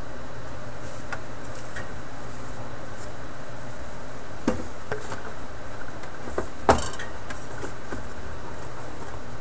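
A few light knocks and taps about halfway through, with one sharper knock a couple of seconds later, over a steady low hum.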